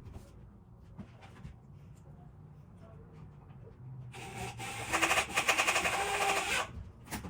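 A power tool runs with a fast, even mechanical chatter for about two and a half seconds, starting about four seconds in; before that there is only faint room noise.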